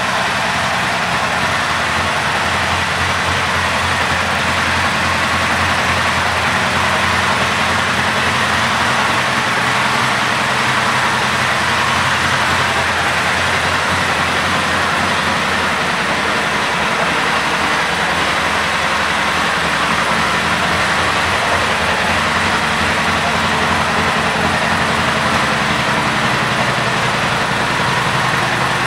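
1987 Honda CBR1000 Hurricane's inline-four engine idling steadily, with no revs.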